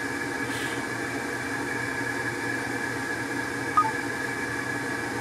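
Steady mechanical background hum made up of a few held tones, with a brief short chirp a little under four seconds in.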